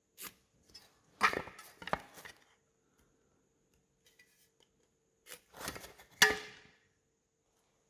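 Knocks and scrapes of a wooden-stocked tri-square and a piece of timber being handled, turned and set down on a workbench, in two bursts; the loudest knock comes about six seconds in. Faint pencil ticks on the wood come between the bursts.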